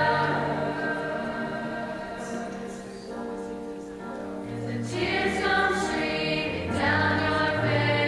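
High school show choir of mixed voices singing held chords, softening in the middle and swelling back up about five seconds in.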